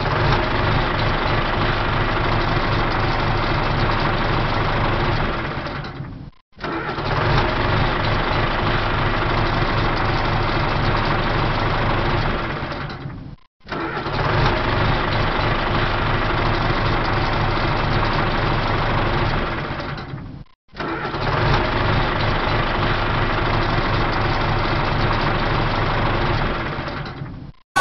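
Engine running steadily, a dubbed-in tractor engine sound in four stretches of about seven seconds, each fading out into a short break before starting again.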